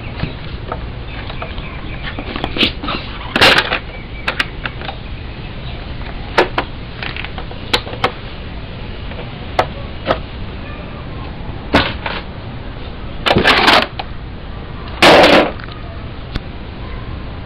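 Handling noise from an RC truck held close to the microphone: scattered clicks and knocks and a few short rustling scrapes over a steady low rumble, the loudest scrape near the end. No engine is running.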